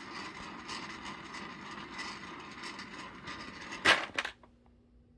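Dozens of small capped sample vials rattling and clattering against each other as a hand stirs through them in a wide tray, with a sharp loud clack just before four seconds in, after which the rattling stops.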